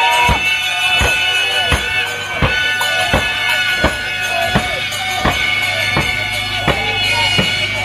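Music with a steady drum beat, a little under one and a half strikes a second, under sustained high melody notes.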